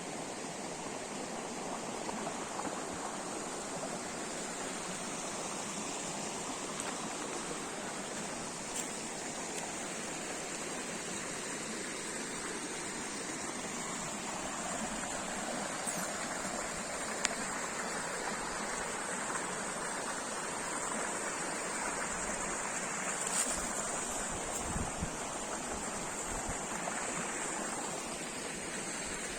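Steady rush of running water, like a stream, with a few faint clicks.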